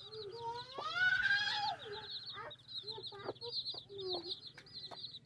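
A brood of chicks peeping nonstop in rapid, high chirps, with a mother hen clucking lower beneath them; her calls are loudest in the first two seconds, one rising in pitch.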